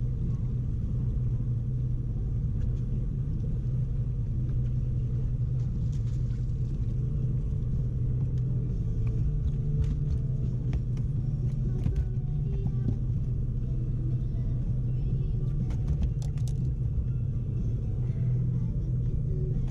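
Boat motor running steadily, a low rumble with a constant hum, with a few scattered light clicks.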